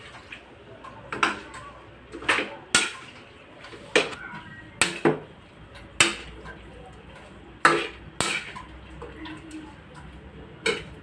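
Clinks and knocks of a utensil against a cooking pan: about ten sharp strikes at uneven intervals, over a low background hiss.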